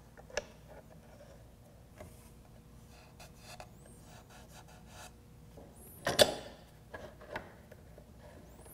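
Bar clamps being tightened and set on a wooden box and MDF jig: scattered light clicks and knocks, with a louder clatter about six seconds in.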